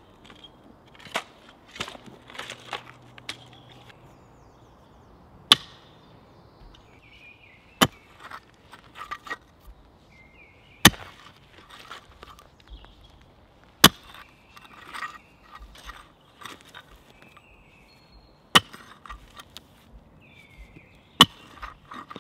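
A century-old hand mattock striking into root-filled forest soil, one sharp chop every two to three seconds, about seven in all, with lighter scrapes and knocks of digging tools between them.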